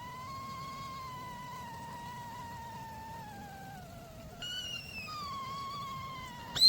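Aluminium whistling kettle's spout whistle as the water comes to the boil: a thin, wavering whistle that slowly slides down in pitch. A second, higher tone joins it about halfway, and a brief loud shrill whistle bursts out at the very end.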